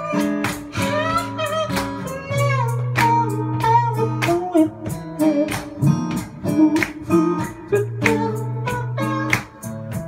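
Acoustic guitar strummed and picked in live music, with a higher melodic line above it whose pitch bends and slides.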